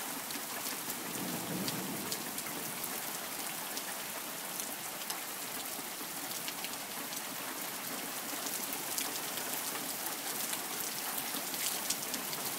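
Heavy rain falling steadily: an even hiss of pouring rain with many sharp little taps of drops striking surfaces close by.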